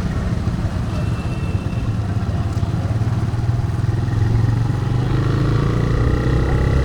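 TVS Raider 125's single-cylinder four-stroke engine running under way. The engine note grows a little louder and rises slightly from about four seconds in.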